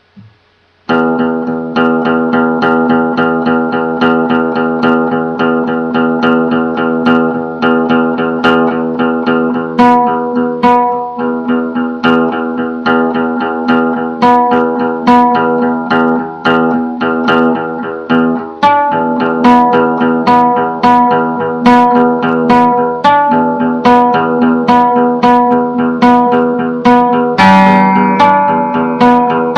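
A guitar improvisation, recorded through a webcam microphone with poor sound quality. Notes are picked steadily at about two to three a second over sustained notes, and the playing starts about a second in.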